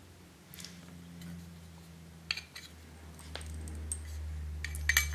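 Small metallic clicks and scrapes of a steel M150 spring and its spring guide being handled and pushed into the cylinder of a Striker Amoeba airsoft sniper rifle, with sharper clicks a little over two seconds in, about three and a half seconds in and near the end. A low hum underneath grows louder in the second half.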